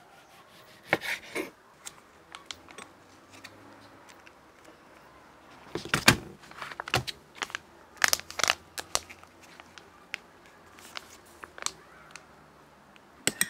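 A kitchen knife cutting a tomato on a wooden cutting board, with a few knocks of the blade on the board about a second in. After that come scattered clicks and the crinkle of a soft plastic sauce pouch being handled and squeezed, loudest around the middle.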